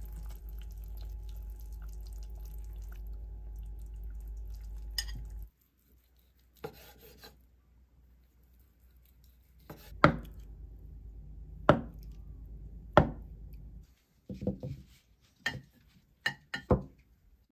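Kitchen knife slicing boiled pork belly on a wooden cutting board: three sharp knocks of the blade striking the board, about a second and a half apart. Before that comes a steady low hum, and near the end a quick run of lighter taps and clicks.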